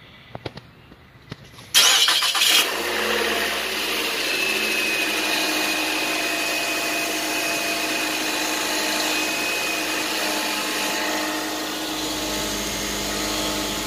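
A 2011 Nissan Altima's 2.5-litre four-cylinder engine cranks briefly and starts about two seconds in, then idles steadily. A few light clicks come before it starts.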